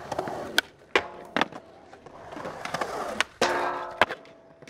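Skateboard rolling on concrete, broken by sharp board clacks, with two short grinds on a metal rail that ring for about half a second each, the second one ending in a hard landing about four seconds in.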